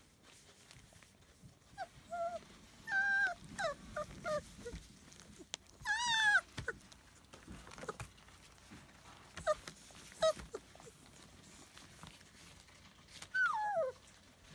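Young puppies whining and whimpering in short, high cries, the loudest a wavering cry about six seconds in, and a long falling whine near the end.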